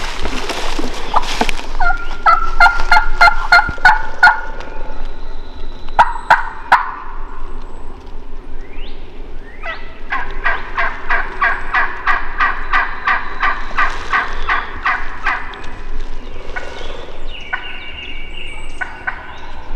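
Wild turkey yelping: a run of yelps from about two to four seconds in, then a longer, evenly paced series of about twenty yelps from about ten seconds in.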